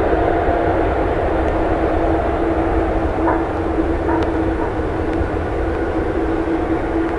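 Korean Air Boeing 777 freighter's twin GE90 turbofans running at high power as it rolls down a rain-soaked runway: a steady, loud jet roar with a constant hum in it.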